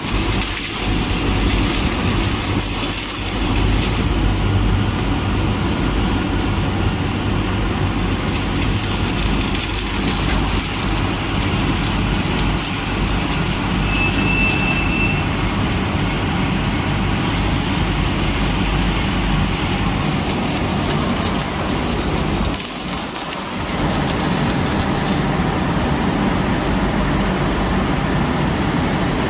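Loud, steady industrial machinery noise: a low hum under a constant hiss, with a few brief crackles and a short dip about twenty-three seconds in.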